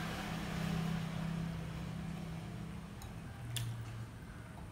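A steady low mechanical hum in a small room, louder in the first couple of seconds, with quiet chewing of a mouthful of food and a couple of faint clicks of a metal spoon against a ceramic bowl about three seconds in.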